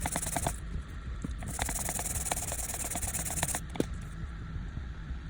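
Small clicks and scraping from hand tools working on a phone's circuit board, in irregular light taps, with a high hiss that comes and goes.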